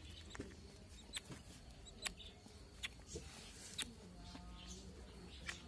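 A duckling giving short, soft peeps about once a second, faint over a low steady hum.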